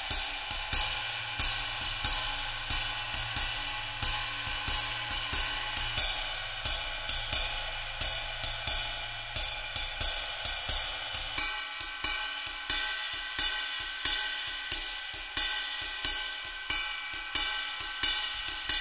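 Ride cymbal played in a steady ride pattern with wooden-tipped Vic Firth 5B drumsticks: each stick strike pings and the cymbal rings on underneath. The stick changes between tip shapes (round, teardrop, barrel), and the ring's tone shifts about eleven seconds in.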